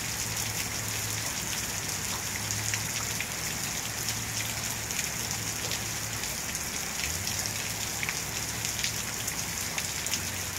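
Steady rain falling, an even hiss with many individual drops ticking close by.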